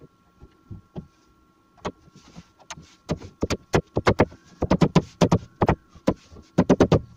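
Beech door rail being knocked down onto the Domino tenons in its stiles during a dry fit: a run of sharp wooden knocks, a few at first, then coming thick and fast in clusters through the second half.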